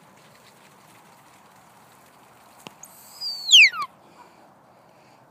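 Sheepdog handler's whistle command: about three seconds in, a loud high note held briefly, then sliding steeply down, with breathy hiss on top.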